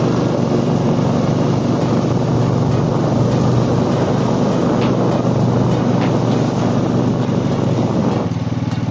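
A vehicle engine running steadily with a rushing noise over it. About eight seconds in the rushing drops away, leaving the engine's steady low note.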